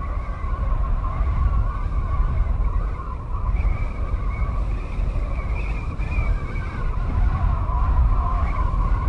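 A woman's long, loud, held scream, wavering slightly in pitch, over a heavy low rumble.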